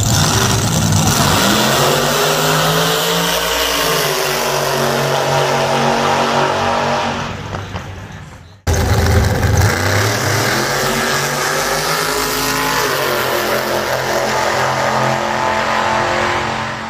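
Drag-racing cars launching and accelerating hard down the strip, the engine note climbing in pitch and then fading as they pull away. The sound cuts off about halfway through and a second run starts loud, climbs and fades the same way near the end.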